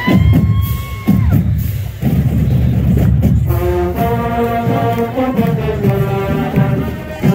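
High school marching band playing, with low drum beats under it. From about three and a half seconds in, the brass holds long sustained notes that move from chord to chord.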